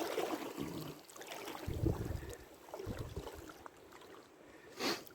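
Water splashing and knocking around a small rowboat as fishing gear is handled over the side. There are a few low thumps in the middle and a sharp tap near the end.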